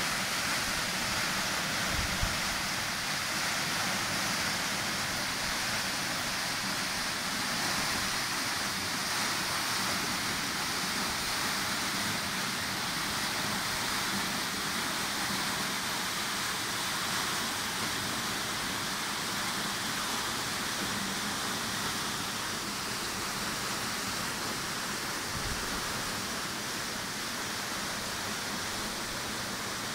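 Tall waterfall falling down a steep rock face, a steady dense rush of water.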